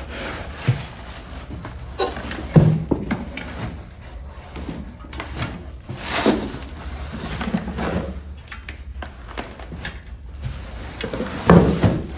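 Handling noise from unpacking a heavy boxed inverter: plastic wrap rustling and the cardboard box and foam packing knocking and scraping, in irregular thumps and rustles.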